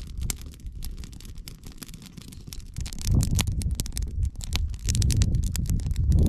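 Campfire burning with a steady run of sharp crackles and pops from the wood. Low rumbling gusts of wind buffet the microphone about three seconds in and again near the end.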